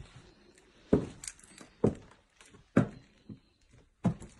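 Footsteps on bare wooden floorboards: four dull thuds about a second apart.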